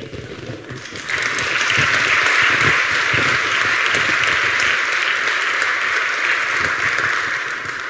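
Audience applauding: the clapping swells about a second in, holds steady, and tapers off near the end.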